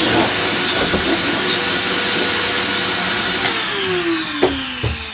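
Vacuum-type electric motor running steadily with a high whine, then switched off about three and a half seconds in, its pitch falling as it winds down. A few light knocks come near the end.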